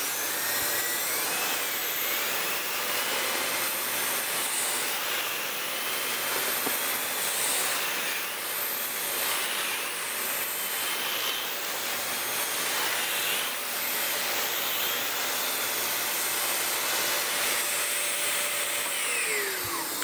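Dyson DC39 canister vacuum running steadily while its wand and floor tool pick dirt up off the floor. The motor's whine is still rising in the first second or two after switch-on and falls away near the end as it is switched off.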